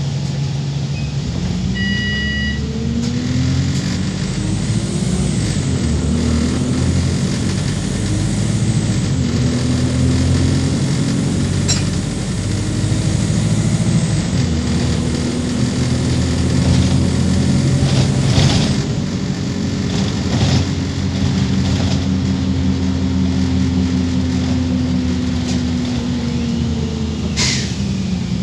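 Wright StreetLite Max micro-hybrid bus's diesel engine heard from inside the saloon, pulling up through the gears with the revs rising and dropping back several times over the first ten seconds or so, then climbing and holding high revs for a long stretch before easing off near the end. The gearbox is one the uploader calls very obviously dodgy, sounding in urgent need of replacement. A brief electronic beep sounds about two seconds in.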